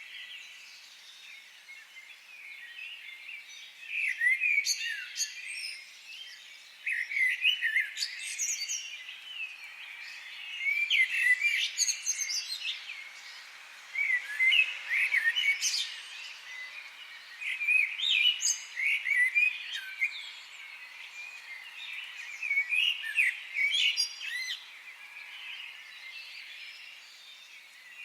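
Songbirds chirping and twittering in bursts of quick high chirps every few seconds, over a steady background hiss.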